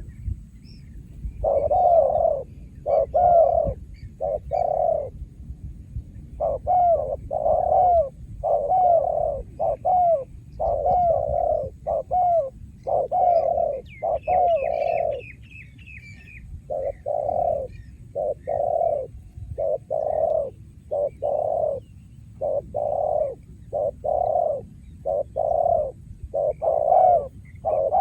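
Spotted dove cooing over and over in quick successive phrases. A short run of high chirps from another small bird comes in about halfway through.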